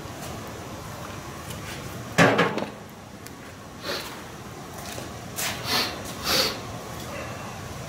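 A loud knock with a brief ring about two seconds in as a cordless drill is set down on the work table, followed by a few softer knocks and handling sounds.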